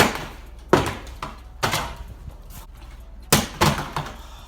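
A series of sudden loud bangs, five in all at uneven spacing, each trailing off briefly.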